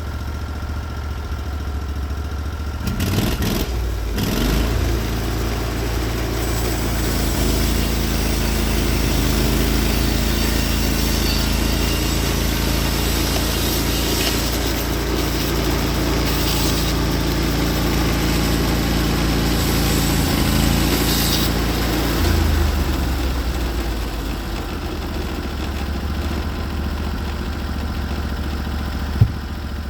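Norwood HD36v2 portable bandsaw mill running: its engine is idling, picks up with a brief clatter about three seconds in, runs steadily under load through a shallow cut along a spruce log, and eases back about twenty-two seconds in. One sharp click near the end.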